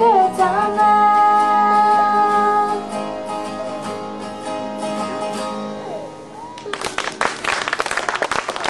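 Final chord of a song on two acoustic guitars, with female voices holding the last sung note for about three seconds and the strings ringing out and fading. About seven seconds in, an audience breaks into applause.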